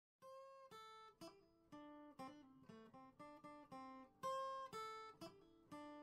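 Quiet background music on a plucked string instrument: single notes picked one after another, each ringing and dying away. It starts a moment after silence.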